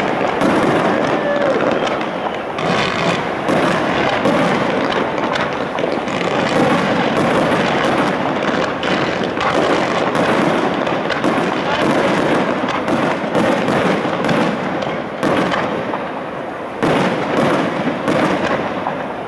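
Aerial firework shells bursting overhead in quick succession, a dense run of bangs and crackle, easing briefly before another loud burst near the end.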